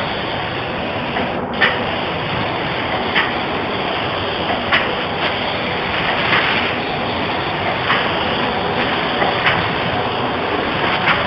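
Compressed-air spray gun hissing steadily as it sprays a coat of finish, with a brief break about a second and a half in. A faint click recurs about every second and a half.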